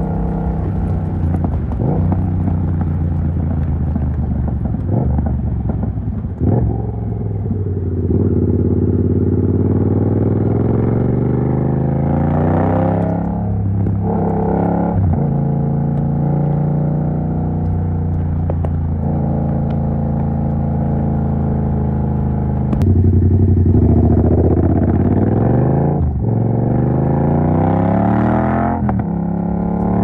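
Yamaha MT-07's parallel-twin engine, with the dB killer removed from its exhaust, running under way. It holds steady for long stretches and revs up several times, with sharp breaks and drops in pitch between, as at gear changes.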